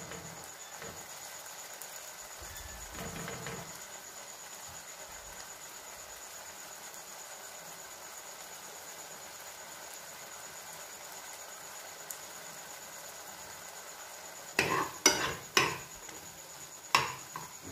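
Prawns cooking in a pan with a faint, steady sizzle as their released water simmers. From about three-quarters of the way in, a spatula scrapes and knocks against the pan several times as the prawns are stirred.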